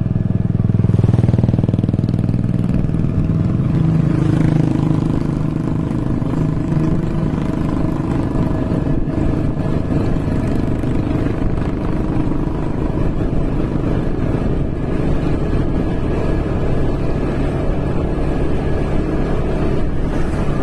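A vehicle engine running steadily with a low rumble, a little louder in the first few seconds.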